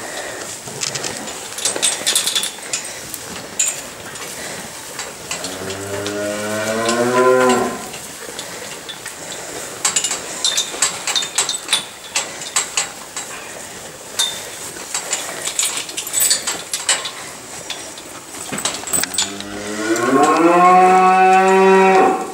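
Cows mooing twice: one call rising in pitch about five seconds in, and a longer one near the end that rises and then holds. Scattered clicks and rustles come between the calls.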